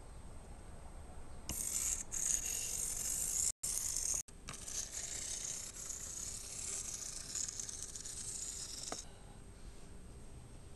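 Faint high-pitched whirring and rattling of a T-gauge VT 89 diesel railcar model running on its track, its tiny motor and wheels. It starts about a second and a half in, drops out briefly twice around four seconds, and stops about nine seconds in.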